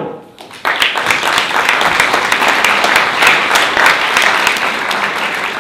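Audience applauding: many hands clapping together, breaking out just under a second in and carrying on steadily.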